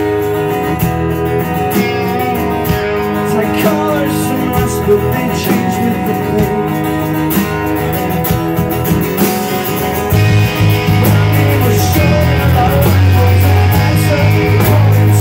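Punk band playing live: strummed acoustic and electric guitars over bass and drums. About ten seconds in, the low end gets heavier and the band gets louder.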